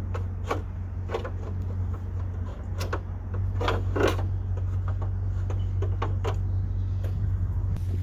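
Scattered light clicks and knocks as the window frame of a Mercedes G-Wagon door is worked loose and pulled out of the door, over a steady low hum.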